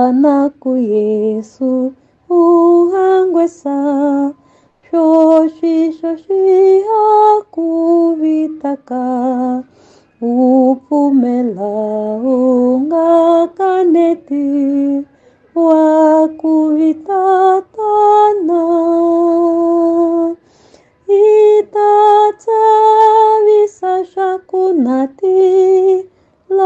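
A woman singing unaccompanied in a clear voice with vibrato, in short phrases separated by brief pauses.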